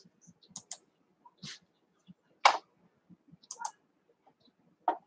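A few faint, scattered clicks and taps, about seven, irregularly spaced, the loudest about halfway through.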